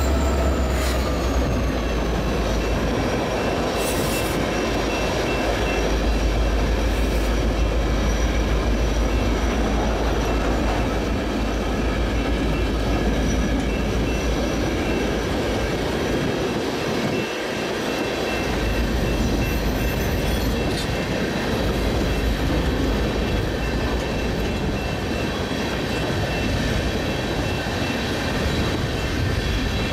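Freight train of loaded coil cars rolling past: a continuous rumble of wheels on rail with a faint high wheel squeal. In the first few seconds a whine from the passing diesel locomotive drops in pitch as it goes by.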